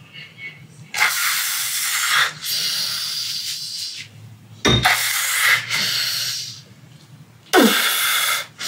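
Man breathing hard while lifting dumbbells in lateral raises: four long, forceful breaths blown out through pursed lips, each lasting a second or more, with short pauses between them.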